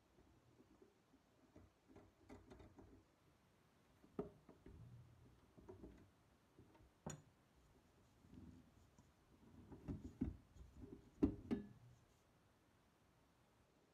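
Faint handling sounds: dough being pulled off a stand mixer's dough hook and a stainless steel mixing bowl knocked and shifted, with scattered sharp clicks and knocks, the loudest just before the end.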